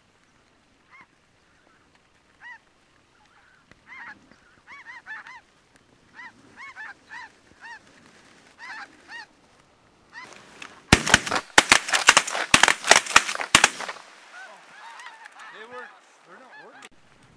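Snow goose calls, short arched honks repeating over and over from the flock. About eleven seconds in, a rapid volley of roughly ten shotgun shots from several hunters fires within about three seconds, the loudest sound, after which the goose calling goes on.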